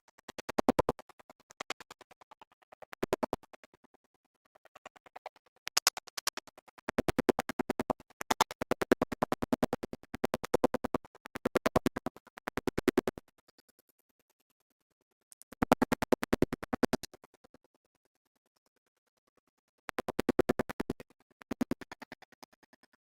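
Electronic music with choppy, stuttering scratch-like sounds, coming in bursts separated by short silences.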